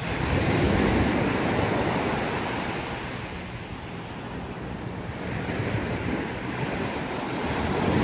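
Ocean surf breaking and washing up the beach, with wind buffeting the microphone. The wash swells about a second in, eases, and builds again near the end.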